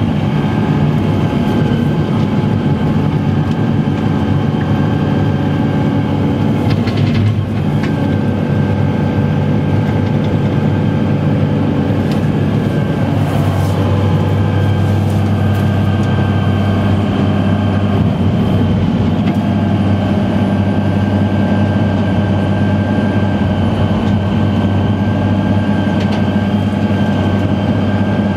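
Fendt 939 Vario tractor's six-cylinder diesel running steadily under load while it drives a Meri-Crusher soil mulcher, heard from the cab: a loud, even low drone with a steady high whine over it.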